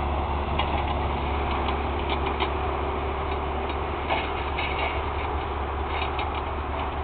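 John Deere backhoe's diesel engine idling steadily, with scattered light clicks over the low steady running.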